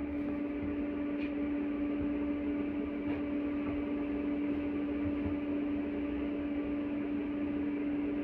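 Steady electrical hum at one constant pitch inside an LVS-86 tram car, from the tram's onboard electrical equipment, over a low background rumble.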